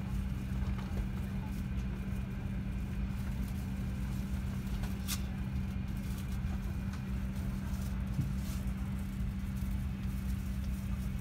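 Steady low hum of an Airbus A350-1000 airliner cabin, its air system running, with one sharp click about five seconds in.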